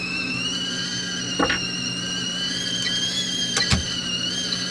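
Blue enamel stovetop kettle on a gas burner whistling steadily at the boil, a single high whistle that drifts slightly up and then down in pitch. Two brief knocks cut through it, one about a second and a half in and a sharper one near the end.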